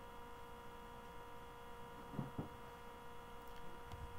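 Low, steady electrical hum with a faint whine made of several fixed tones, the background noise of the recording setup. A short, faint noise comes a little past two seconds in.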